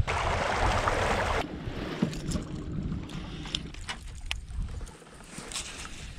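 Water lapping against a kayak's hull, with a burst of wind noise on the microphone for about the first second and a half and a few light clicks from the baitcasting rod and reel being handled.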